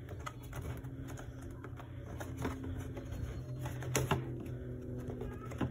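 Light, irregular clicks and taps of a picture frame and its backing board being handled and pressed together on a countertop, with two sharper knocks, about four seconds in and near the end.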